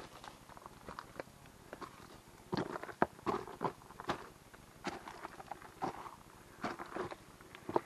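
Footsteps of a hiker walking on dry leaf litter and loose stones: irregular crunching and rustling steps.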